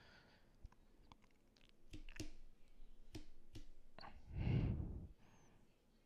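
A few small sharp clicks at uneven intervals, then a short breath on the microphone about four and a half seconds in.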